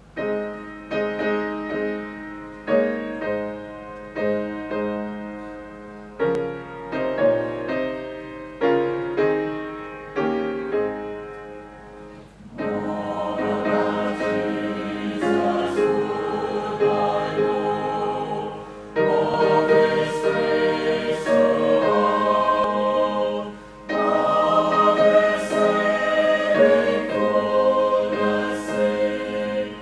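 A hymn played as separate piano notes that fade after each strike, then about twelve seconds in a choir comes in singing the hymn in sustained, held phrases with accompaniment.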